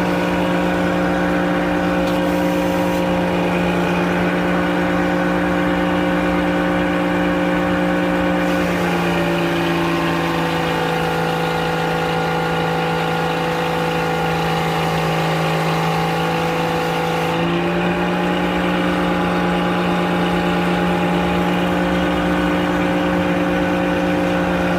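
Frick circular sawmill running steadily under power. From about eight seconds to about seventeen seconds its pitch drops slightly and its tone changes, as the blade takes the load of a cut through white oak.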